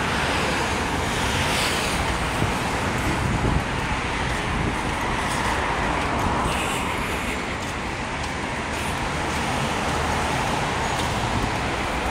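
Steady road traffic noise: cars and other vehicles running along a multi-lane city road.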